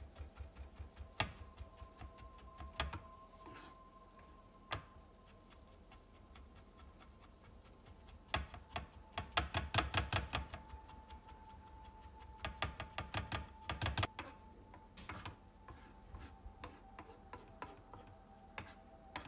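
Chef's knife mincing garlic on a wooden cutting board: scattered single knocks of the blade on the board at first, then rapid runs of chopping strokes from about eight to fourteen seconds in.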